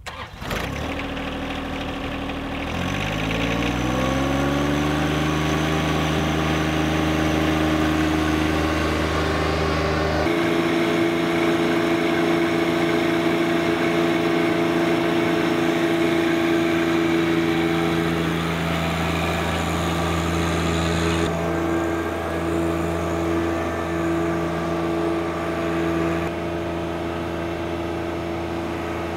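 John Deere subcompact tractor's diesel engine revving up about two seconds in, then running steadily under load as it tows a core plug aerator. Its tone changes abruptly twice, near a third and two thirds of the way through.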